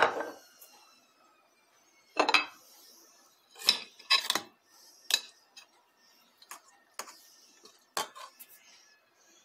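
Metal spoon and ceramic plate knocking and clattering against a stainless steel pot as a plate is set upside down on the food in the pot, about ten clinks and knocks in all. The first knock rings on briefly.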